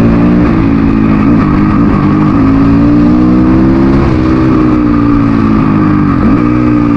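Dirt bike engine running under way, its pitch slowly rising and easing off, with a few brief dips.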